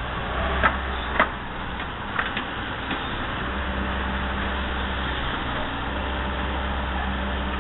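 Excavator's diesel engine running steadily, with a few sharp clacks in the first two and a half seconds.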